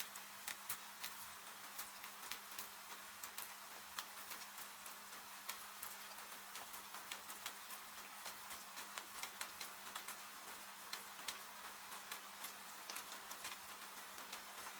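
Wood fire crackling, with irregular sharp pops over a steady hiss of rain. A faint low steady hum lies underneath.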